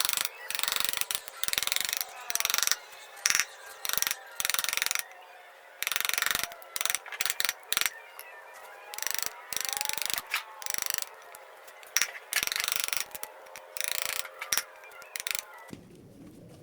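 A hand tool scraping and cutting into wood in short, irregular strokes with brief pauses between them. The strokes ease off near the end.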